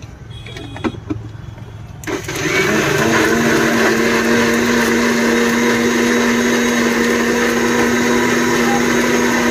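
Small electric mixer-grinder blending a pink fruit drink in its plastic jar: the motor switches on about two seconds in, its pitch rising briefly as it comes up to speed, then runs steadily. A couple of short knocks come just before it starts.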